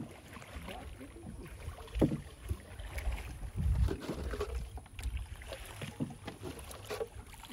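Scattered knocks and bumps on a wooden canoe's hull and planks over a low rumble of wind on the microphone, the loudest thump about two seconds in.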